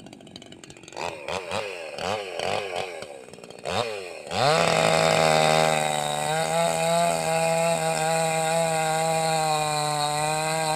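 Petrol chainsaw's two-stroke engine being started: it sputters in short rising-and-falling bursts for about three seconds, then catches about four seconds in and runs steadily, loudest just after it catches.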